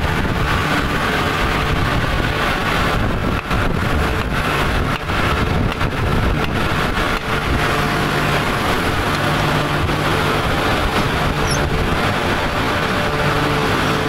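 Loud, steady industrial machinery din of a steel plant's continuous casting machine, a constant noise with a low hum running under it.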